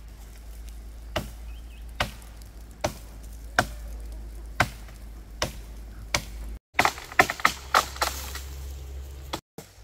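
Chopping: about seven single, sharp strokes a little under a second apart, then a quicker run of strokes.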